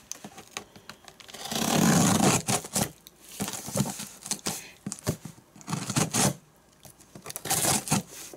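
Scissors cutting and tearing open the taped seam of a cardboard shipping box: a series of ripping, scraping strokes with small clicks between them, the longest about two seconds in.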